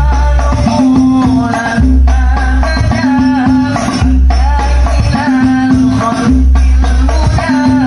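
Banjari sholawat music: rebana frame drums and jingles with a deep bass drum beat recurring about every two seconds, under an ornamented, wavering sung melody.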